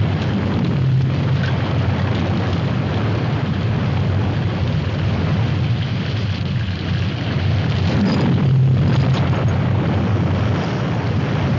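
Heavy rainstorm sound effect: a loud, steady rush with a deep rumble under it, swelling slightly near the end.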